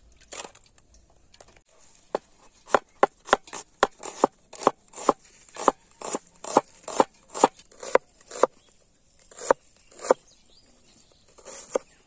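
Steel cleaver chopping red onions on a wooden board: a run of sharp chops, about two or three a second, starting about two seconds in and stopping around ten seconds, then a couple more chops near the end.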